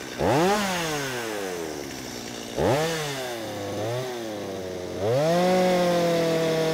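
Two-stroke gas chainsaw revved in short blips that die back down, twice and then once more briefly. About five seconds in it rises to high revs and holds steady.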